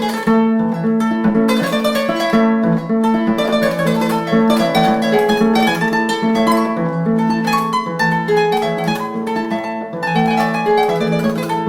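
Background music played on plucked string instruments: quick runs of notes over a repeating lower line.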